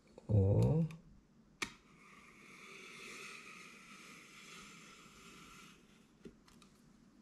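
A short spoken 'oh', a sharp click about a second and a half in, then about four seconds of faint, steady rubbing as the laptop box and its packaging are handled.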